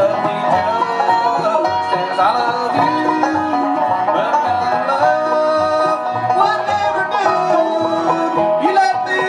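Live acoustic string band with mandolin playing an instrumental blues tune, with a steady bass line of low notes under plucked melody notes.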